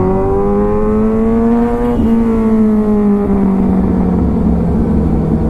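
Kawasaki Ninja 1000's inline-four engine under way, its note climbing as the bike accelerates, with a brief break about two seconds in. After that the revs sink slowly as the throttle is eased off.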